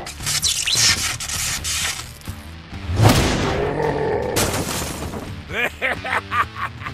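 Cartoon action sound effects over a steady music bed: noisy crash and impact hits, the loudest about three seconds in, followed near the end by short, bending vocal cries.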